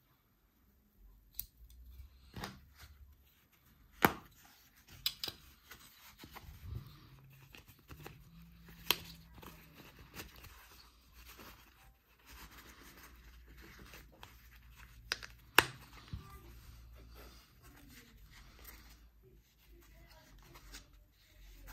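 Opinel No. 8 mushroom knife and its leather sheath being handled: the folded wooden-handled knife is pushed into the sheath and the sheath turned over, with leather rubbing and scattered sharp clicks, three of them louder.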